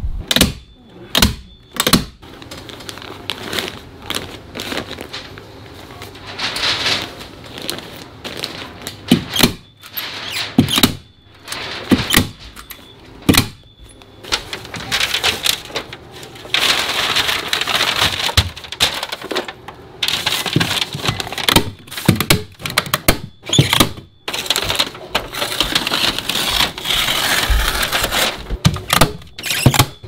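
Hand staple gun snapping staples into wood framing at irregular intervals, with the crinkling rustle of Tyvek house wrap being handled and pressed flat between shots.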